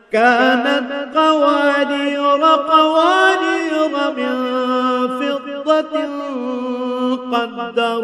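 A male Quran reciter chanting a verse in melodic tajwid style. The voice glides through long, held, ornamented notes and comes in right after a brief breath pause.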